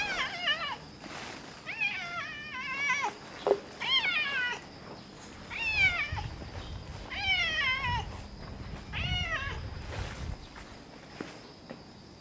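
Red tabby cat meowing over and over, about seven meows one every second or two, each falling in pitch.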